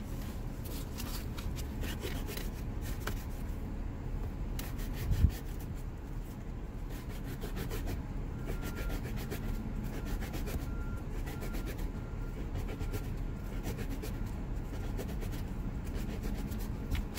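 Sandpaper rubbed by hand in quick back-and-forth strokes over a hard plastic emergency brake handle, sanding down dog-bite gouges. A single thump about five seconds in.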